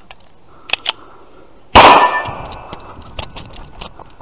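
A single Infinity pistol shot about two seconds in, with a brief metallic ringing after it, then a few faint clicks.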